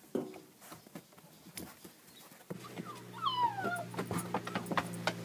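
Husky puppies' paws patter and click on wooden boards. About halfway a puppy whimpers: a few high whines that slide down in pitch, over a steady low hum that starts at the same moment.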